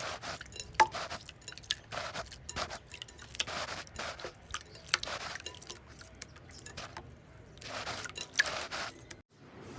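Slime being squeezed and pressed, making irregular sticky crackles, small pops and squishes. It cuts off abruptly about nine seconds in.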